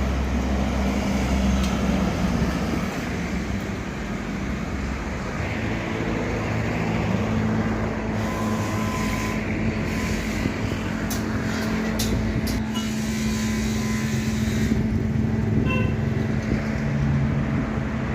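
A steady mechanical hum with a constant low drone under a wash of noise, broken by a few short sharp clicks in the second half.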